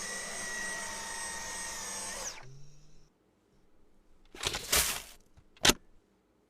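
Cordless stick vacuum's brushless motor running with a steady high whine, switched off a little over two seconds in and winding down. Later comes a short clatter and then a sharp click.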